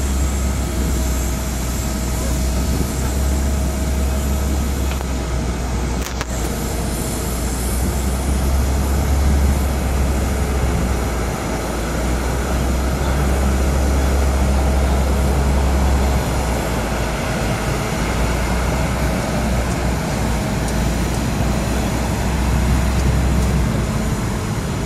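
Steady mechanical drone of an Airbus A330-223F freighter being pushed back by a tow tug, with a strong low rumble that thins out and comes back in the second half. A brief click about six seconds in.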